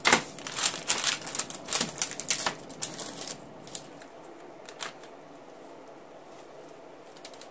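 Quick clicks and taps of a utensil and raw chicken pieces in a pan as the pieces are flipped over, for about three seconds, then two single taps.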